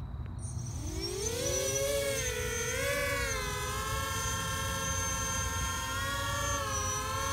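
An experimental drone's electric rotors spin up with a rising whine about a second in as it lifts off. The whine wavers in pitch for a couple of seconds while the drone steadies, then holds an even pitch in a hover.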